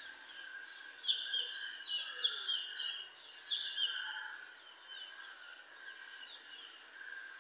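Birds chirping: a run of quick, falling chirps, thickest from about a second to four seconds in, over a steady high-pitched drone.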